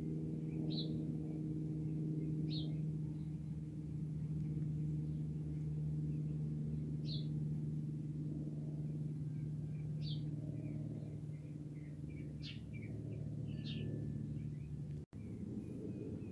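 Cessna 172M Skyhawk flying overhead: the steady, even-pitched drone of its four-cylinder Lycoming piston engine and propeller, which stops abruptly near the end. Small birds chirp briefly about six times.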